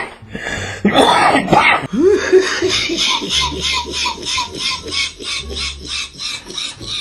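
A man coughs hard about a second in, then a fast, even run of short sounds, about four a second, follows.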